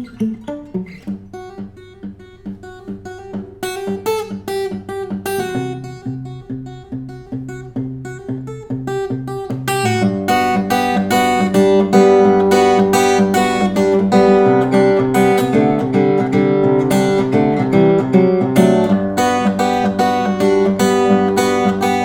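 Solo acoustic guitar. Sparser, quieter picked notes give way about ten seconds in to louder, steady rhythmic strumming.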